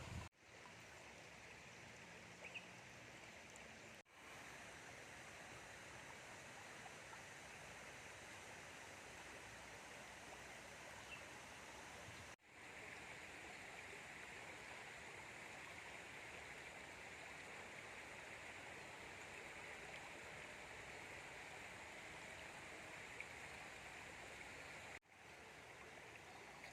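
Faint, steady rush of a flowing river, cutting out abruptly for a moment three times.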